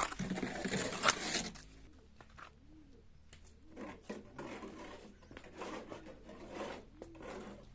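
Birds cooing in low, wavering calls, with a loud burst of noise in the first second and a half.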